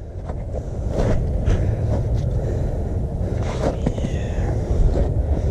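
Wind buffeting the camera microphone: a steady low rumble, with a few faint clicks and rustles.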